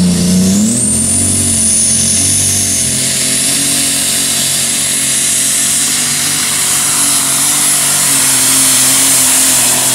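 Super stock pulling tractor's turbocharged diesel engine at full throttle, pulling the weight sled down the track. A high whine rises over about the first second, then holds steady above the engine note.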